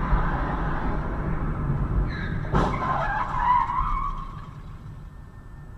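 A car on the road, its running noise steady, then a sharp knock about two and a half seconds in, followed by a wavering tyre squeal of skidding that lasts about a second and a half and fades away.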